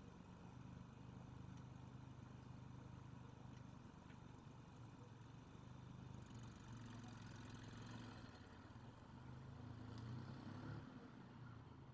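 Faint, steady low hum of an idling vehicle engine.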